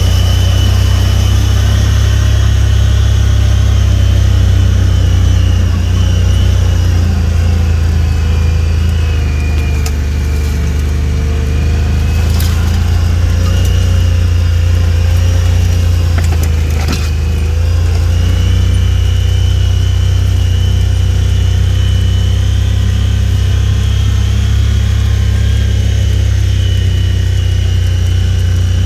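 A vehicle driving along a rough dirt track: steady engine and drivetrain noise with a strong low rumble and a whine that rises and falls slightly in pitch. A few knocks come about ten, twelve and seventeen seconds in.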